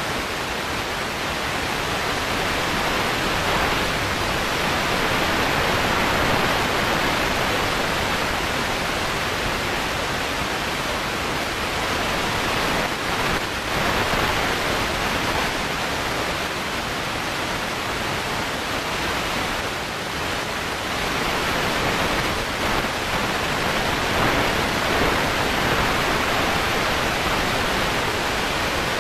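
In-cabin noise of a Volkswagen Beetle racing on gravel: engine, tyres and stones on the body blend into a steady rushing roar, swelling slightly now and then, with no distinct engine note.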